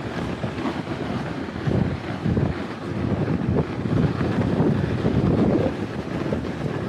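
Wind buffeting the microphone in uneven low gusts, as from speed on a toboggan run.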